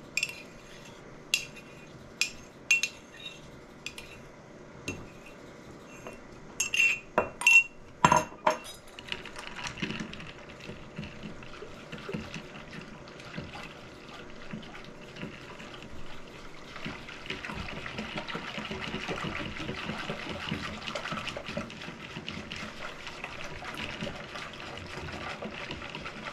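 Sharp clinks of glassware and utensils against a bowl as the dissolved gelatin is poured in, loudest about eight seconds in. Then a red silicone whisk beats the thickening milk-and-gelatin mixture in the bowl with a steady quick swishing, growing louder about halfway through.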